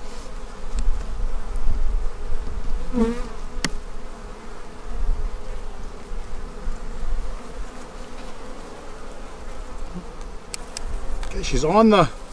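Honeybees buzzing steadily around an open hive, with a low rumble underneath.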